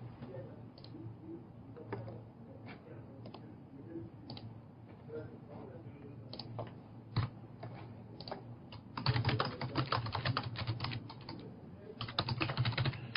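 Typing on a computer keyboard: scattered key clicks at first, then quick runs of typing about nine seconds in and again near the end.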